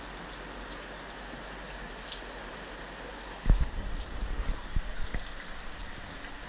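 Steady rain falling, with scattered drips. From about three and a half seconds in, irregular low thuds and rumble on the microphone as the camera is handled.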